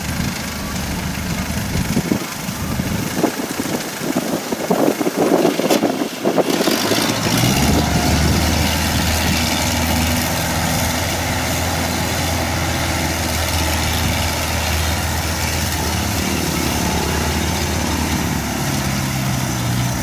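Isuzu 93 diesel engine of a tracked rice tractor, idling unevenly with a few knocks for the first six seconds, then settling into a steady, stronger run as the tractor drives off under its load of rice sacks.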